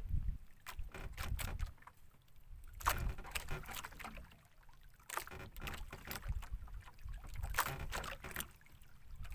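Scattered knocks, clicks and rustles of fishing line and a green lure light being handled in a small boat, over a continuous low rumble.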